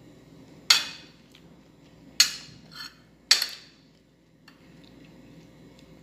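Metal spoon clinking against a ceramic plate while scooping up rice: three sharp, ringing clinks about a second apart, with a lighter scrape between the second and third.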